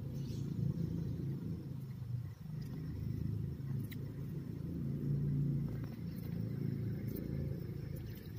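A steady low engine rumble that swells and eases slightly.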